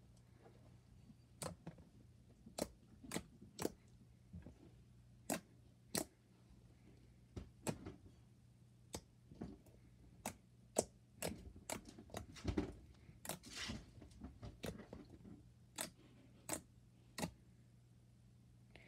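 Thick slime being pressed, folded and poked by hand, giving irregular sharp clicks and small air-bubble pops, about one or two a second.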